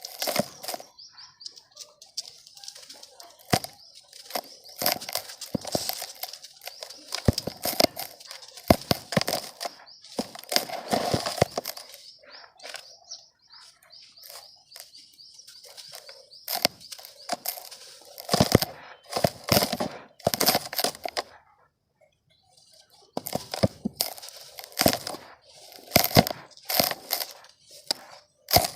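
Dry mud being crumbled and crushed by hand: irregular crunching and crackling with sharp snaps, coming in clusters separated by short lulls.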